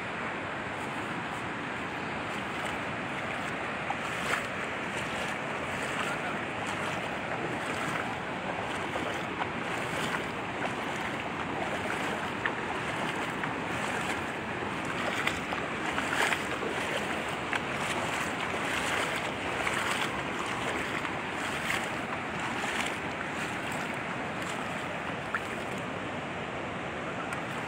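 Steady rushing of muddy floodwater streaming across a flooded road, with wind on the microphone adding scattered short crackles.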